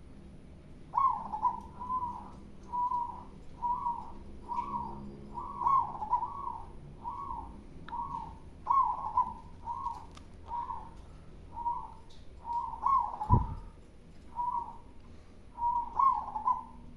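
Zebra dove (perkutut) singing its cooing song: a long run of short, rolling coos, about one to two a second, with a brief pause near the end. A single low thump sounds about 13 seconds in.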